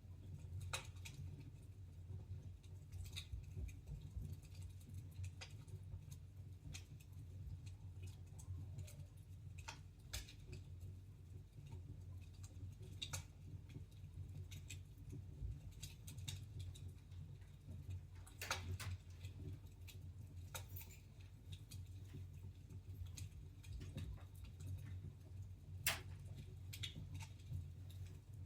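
Fire crackling in a fireplace: scattered sharp pops and snaps over a low steady rumble, with one louder pop near the end.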